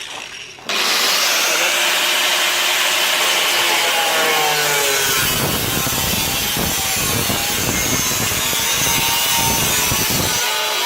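Power tool starting up and cutting through the car body's steel where two layers of metal overlap. Its pitch sags repeatedly as it bites, and the cut turns rougher about halfway through.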